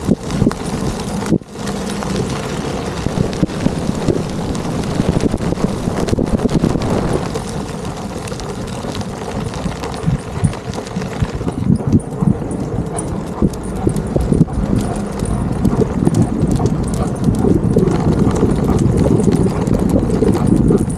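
Skateboard wheels rolling over a paved path and brick paving: a continuous rumble with rapid clattering clicks.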